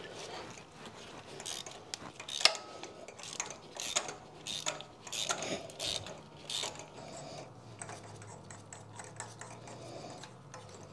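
Hand ratchet on an extension and magnetic spark plug socket clicking in irregular runs as it backs an old spark plug out of the engine. The clicks thin out over the last few seconds.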